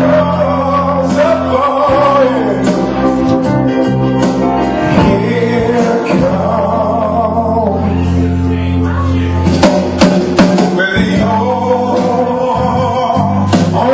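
Music with a singing voice over sustained low chords.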